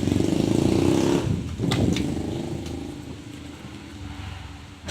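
A motor vehicle's engine running loudly, then fading away after about a second and a half, with a couple of sharp clicks about two seconds in.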